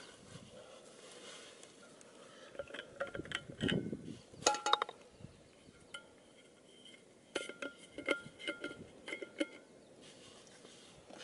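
Stainless steel Stanley vacuum bottle being handled and opened: short metallic clicks and clinks come in two clusters a few seconds apart, some with a brief ring.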